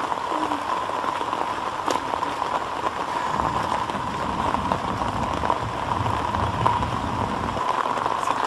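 Steady rain falling on wet ground and puddles, with a low rumble from about three and a half seconds in until near the end.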